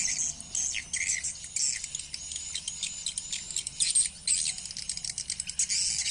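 Swiftlets (walet) calling: dense, rapid high-pitched chirps and twitters with short clicking strokes throughout.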